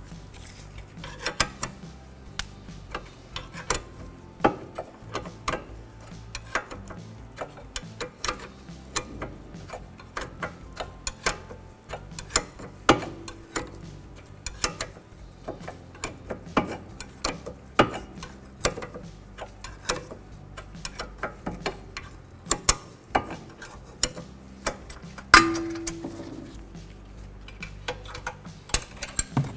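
A 15 mm wrench working the rear brake caliper bracket bolts: a long, uneven run of small metal clicks, with a few louder clinks, one of them ringing briefly near the end.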